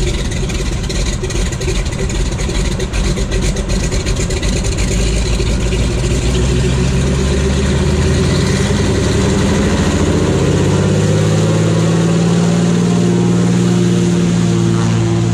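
Single-engine bush floatplane's engine and propeller running up to takeoff power: a lower, uneven rumble rises in pitch and grows louder from about eight to eleven seconds in, then holds as a steady loud drone as the plane starts its takeoff run on the water.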